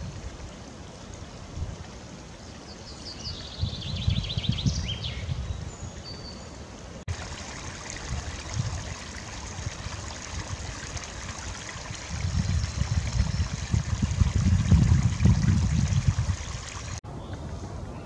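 Small forest stream trickling and running over stones. A songbird gives a quick descending trill about three to five seconds in, and wind buffets the microphone with a low gusty rumble in the later half.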